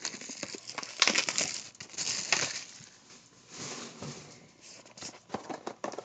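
Sealed trading-card hobby box being torn open: cardboard and wrapping crinkling and tearing in irregular bursts, the strongest about a second in and again a little past two seconds. The box is hard to get into.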